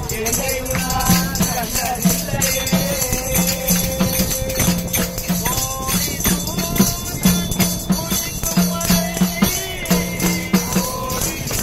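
Group of men singing a devotional Ayyappa bhajan together, with a hand-held percussion rattle or wooden clappers clicking along in quick strokes.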